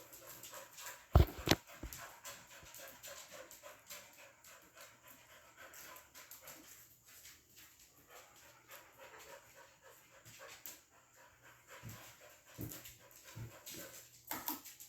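Ceiling fan running with a faint steady hum, which comes from its loose glass shades. Over it a dog pants in quick rhythmic breaths, and two sharp knocks sound about a second in.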